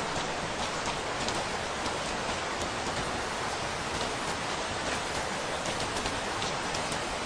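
Steady rain falling, an even hiss of rain with the sharp ticks of single drops landing now and then.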